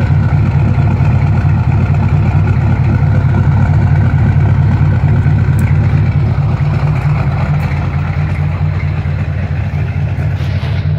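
GM 6.2-litre V8 diesel engine idling steadily, heard through its vertical exhaust stack.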